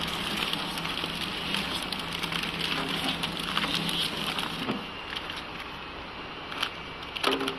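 Pillow (flow-wrap) packing machine running with a steady low hum, under a continuous crinkling crackle of plastic wrapping film as the freshly wrapped packs are handled. The hum stops a little under five seconds in, and a few sharp clicks follow near the end.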